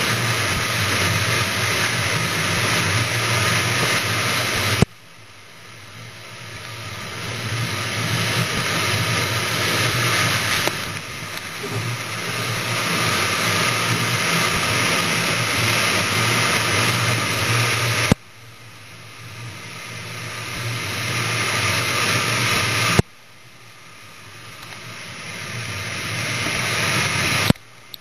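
Electric train running at speed, heard from inside the driver's cab: a steady rush of rolling and wind noise over a low hum. The sound drops off abruptly four times and swells back up over several seconds after each drop.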